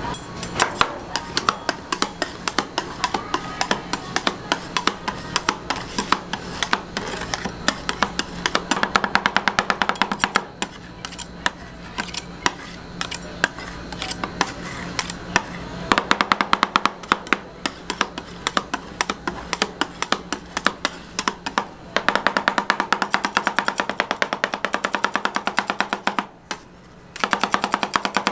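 Two metal spatulas chopping and scraping rolled-ice-cream base on a cold steel plate: fast runs of sharp metallic taps that stop and start.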